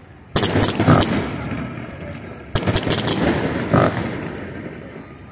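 Fireworks display: aerial shells bursting in two volleys, each a pair of loud booms followed by crackling that dies away. The first volley comes about a third of a second in, the second about two and a half seconds in.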